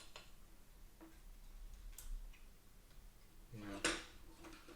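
A few faint, sharp clicks and taps of small parts being handled, with a short word of speech near the end.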